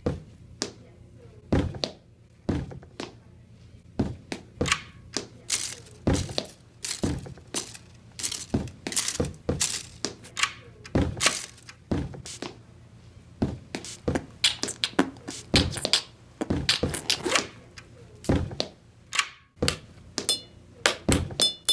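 An uneven series of sharp knocks and thuds, sparse at first and coming faster and closer together in the second half, with the last few knocks carrying a short ringing tone.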